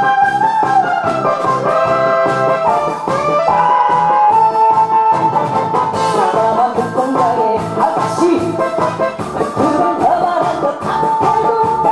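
Upbeat song backing track with a steady beat and a brass melody line.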